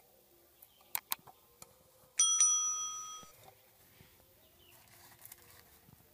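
Two quick clicks, then a single bright bell ding that rings for about a second and cuts off abruptly: the click-and-bell sound effect of an on-screen subscribe-button animation.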